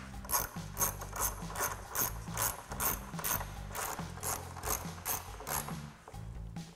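Hand ratchet clicking in a quick even run, about four or five clicks a second, as T25 Torx screws are driven into the grille. It stops about a second before the end.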